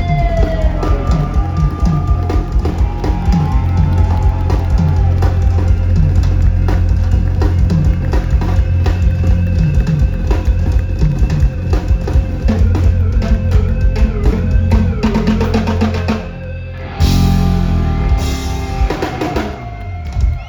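Live reggae-dancehall band playing an instrumental passage with drum kit, heavy bass and guitar on a steady beat. The music drops out about sixteen seconds in, and a last loud hit rings for about two seconds as the song closes.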